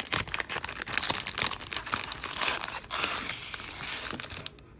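Crinkly plastic packaging of a Pokémon trading-card product crackling and tearing as it is opened by hand. The crackling is dense, then eases off shortly before the end.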